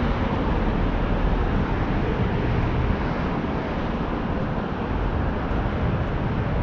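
Steady downtown street noise: a continuous rumble of traffic.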